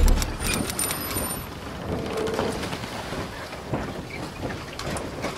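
Logo-intro sound effect: a deep boom right at the start, then a rumbling, crackling noise with scattered clicks and a high shimmering tone during the first second and a half.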